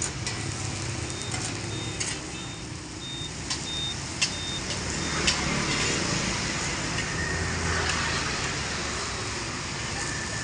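Street-stall background of traffic hum, with sharp clinks of metal cooking utensils against pans. Over the first few seconds a run of short, high electronic beeps sounds, about two a second.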